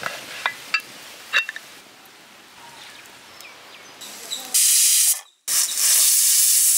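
A few metal clicks as the aluminium pressure cooker's lid is locked shut, then faint crackling of a wood fire. About four and a half seconds in, steam hisses out loudly from the cooker's weight valve in two bursts, the second longer: the cooker whistling as it comes up to pressure.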